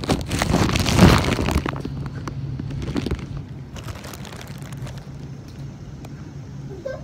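Handling noise: a hand rubbing and bumping against the phone and its microphone as the hidden camera is set in place, loud rustling and scraping for about the first two seconds, then only a faint steady low hum.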